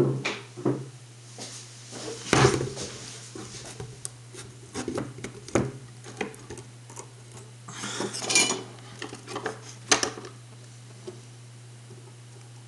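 Small metal parts, wires and tools handled by hand during electronics assembly: irregular clicks, knocks and short rubbing noises, with a longer scrape about eight seconds in, over a steady low hum.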